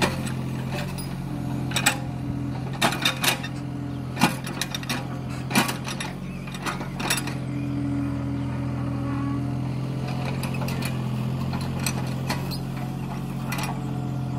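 Hitachi ZX33U mini excavator's diesel engine running steadily while digging, with sharp knocks and clanks from the bucket and arm working the soil in the first half. The engine hum grows stronger for a moment about eight seconds in.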